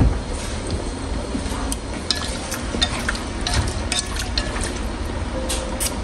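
Long wooden chopsticks stirring beef tendon in a pot, with scattered light clicks and scrapes against the pot as the food simmers with a faint sizzle. A steady low hum runs underneath.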